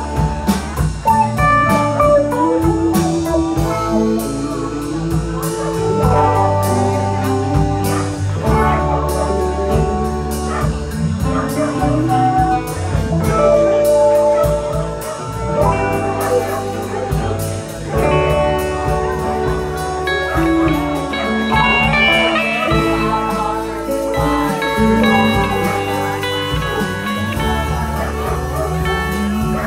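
Live band playing an instrumental jam section: electric guitars leading over bass and drums with a steady beat.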